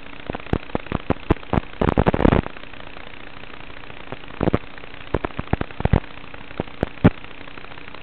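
Static from an analog FPV video link's audio channel: a steady hiss with a faint hum and irregular crackling pops. Some of the pops come in clusters about two seconds in and again in the middle.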